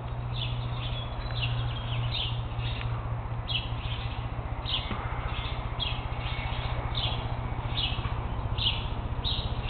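A chorus of small wild birds chirping: short, high chirps repeat about once or twice a second, over a steady low hum.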